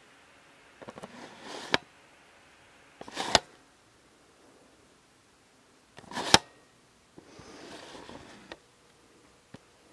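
Handling noise from a handheld camera or phone being moved about: three short rustles, each ending in a sharp knock, about a second, three seconds and six seconds in, then a longer, softer rustle.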